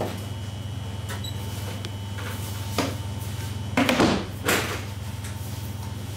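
Wooden divider bar being shifted in a wooden dough-proofing box: a few short wooden knocks and scrapes in the middle, the loudest cluster about four seconds in, over a steady low hum.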